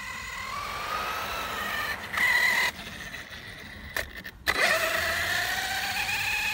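Arrma Kraton BLX brushless electric RC monster truck on 6S power whining as it drives across grass, the motor pitch rising and falling with the throttle. The sound breaks off abruptly twice near the middle, where short clips are cut together.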